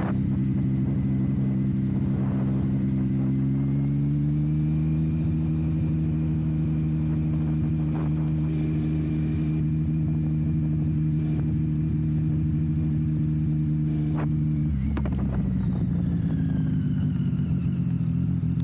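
Sport motorcycle engine running at a steady speed; the revs rise a little a few seconds in, hold, then drop back about three-quarters of the way through.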